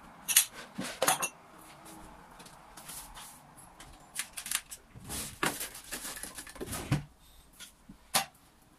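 Dishes and cutlery being handled: a series of sharp clinks and knocks, busiest in the middle, with single louder knocks near the start and near the end.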